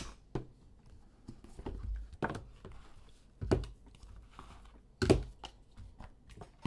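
Hands handling a trading-card box and a wrapped pack: a sharp click right at the start, then three dull knocks spread over the next few seconds, with light rustling and ticks between as the pack is lifted out of the box's foam insert.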